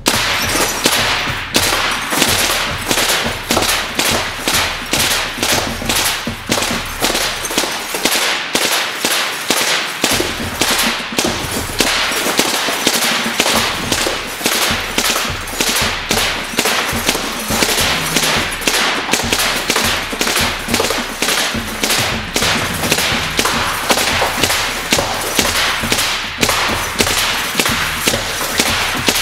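SMG 22 belt-fed full-auto .22 pellet gun firing continuously in rapid shots, with light bulbs bursting as the pellets hit them.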